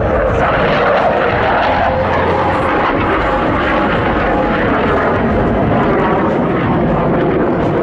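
F/A-18 Hornet jet climbing steeply overhead: steady, loud rushing jet noise from its twin turbofan engines.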